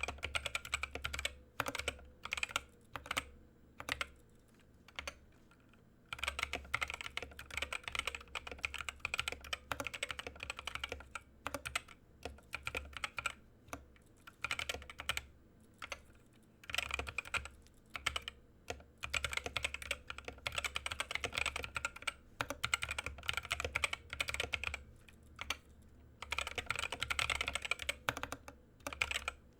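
Mechanical keyboard with unlubed Gateron optical yellow linear switches being typed on. Separate key presses at first, then fast runs of typing broken by short pauses.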